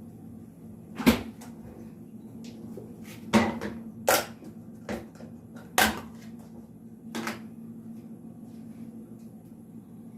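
Kitchen handling noises: about six sharp knocks and clunks spread over several seconds, as cupboard doors, drawers or a pan are moved about. A steady low hum runs under them.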